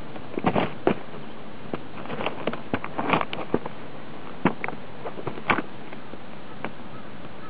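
Black Frye harness boots with neoprene soles stepping on loose rocks: irregular crunches and clacks of stones shifting underfoot, over a steady background hiss.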